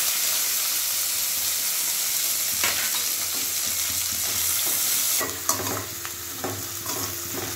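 Chopped onions sizzling in hot oil in an aluminium kadai while a metal ladle stirs them. About five seconds in the sizzle dies down and the ladle's scrapes and knocks against the pan come through more clearly.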